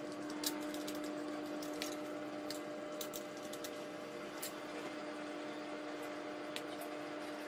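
A steady low hum with a hiss under it, and scattered light clicks and taps from small parts being handled on the circuit board.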